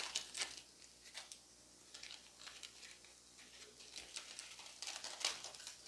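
Faint, scattered crinkling and crackling of charred, dry sal leaves being peeled away from a leaf-wrapped pitha on a tawa.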